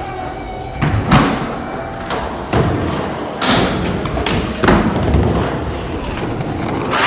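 Skateboard thudding and clacking against a ramp, about five hard impacts a second or so apart, with wheels rolling between them.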